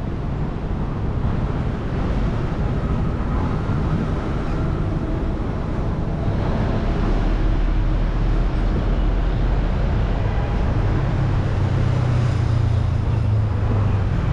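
City street traffic: a steady wash of road noise from passing vehicles, with a low engine hum growing stronger in the last few seconds.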